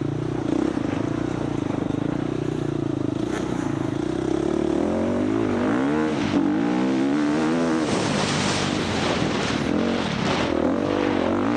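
Husqvarna FX 350 four-stroke single-cylinder dirt bike engine under racing load, its pitch swinging up and down several times as the throttle opens and closes, with rough wind and chassis noise.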